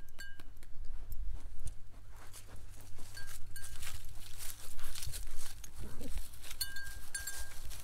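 Goats and a person moving over dry leaves and grass, with a stream of light rustles and clicks and a short goat bleat about six seconds in. A light metallic ring comes and goes a few times.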